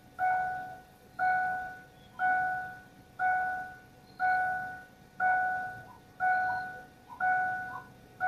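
Car warning chime dinging steadily about once a second, each ding struck and then fading.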